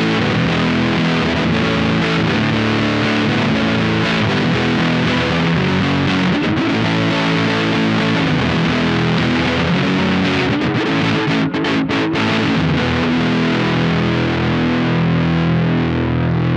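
Squier Paranormal Offset Telecaster with a Lollar Royal T neck pickup, wired with the four-way switch set to parallel, played through a Bookworm Effects Diving Belles distortion pedal and a Milkman amp. It plays distorted chords and notes that ring on, with a couple of brief cut-offs about eleven to twelve seconds in.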